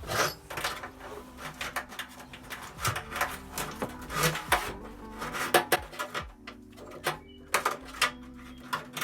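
Irregular clicks, taps and knocks of tools and metal tap fittings being handled, loosened and set down, over faint background music.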